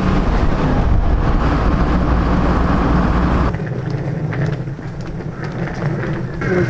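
Steady road and wind rumble from a moving vehicle. About three and a half seconds in it cuts off suddenly to a quieter outdoor background with a few faint clicks.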